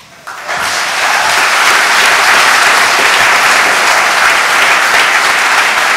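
Audience applauding, the clapping swelling in about half a second in and then holding steady.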